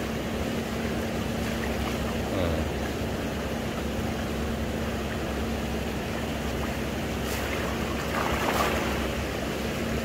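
Shallow sea water washing around a wading fisherman, under a steady low hum at one unchanging pitch. A brief swell of louder water noise comes about eight seconds in.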